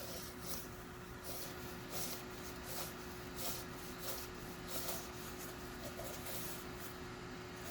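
Faint, repeated rubbing strokes, roughly one every half second to a second: a towel wiping the freshly cleaned holes of a vintage Leslie upper rotor.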